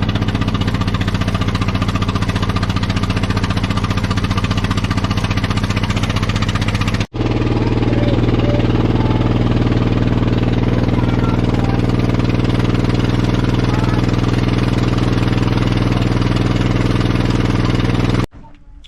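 An engine idling steadily, with a split-second break about seven seconds in and an abrupt stop near the end.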